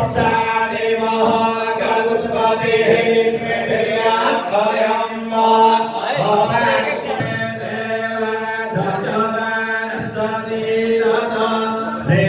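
Hindu mantras being chanted at a temple puja: a steady, melodic vocal recitation with long held notes.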